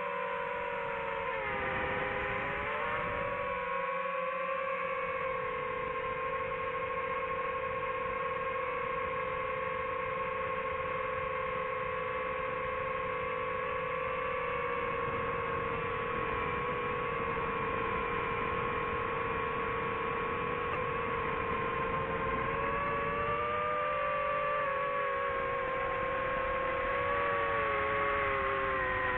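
DJI FPV drone's motors and propellers whining steadily in flight. The pitch dips and rises briefly about two seconds in, and wavers again near the end as the throttle changes.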